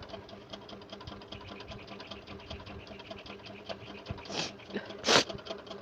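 Two short, sharp breath sounds from a person tickling her nose to bring on a sneeze, a little past four seconds and again about a second later, the second louder. Behind them a steady, fast mechanical rattle with a low hum runs throughout.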